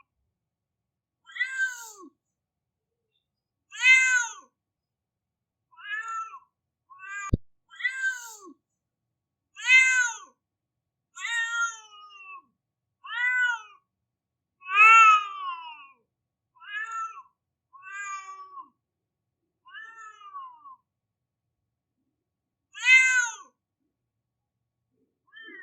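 Domestic cat crying with a string of drawn-out meows, about a dozen, each rising and then falling in pitch, with silence between them. One sharp click comes about seven seconds in.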